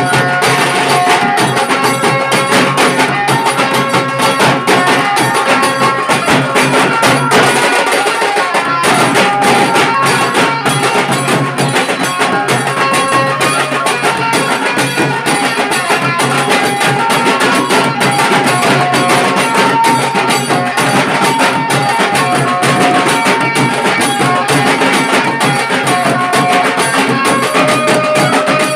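A street drum band playing: large barrel drums beating a loud, steady rhythm under a melody line of held notes.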